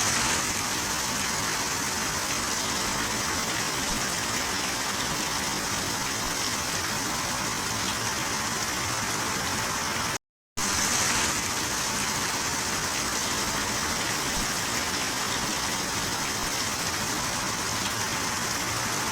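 Heavy rain falling, a steady dense hiss; it cuts out for a moment about halfway through and starts again.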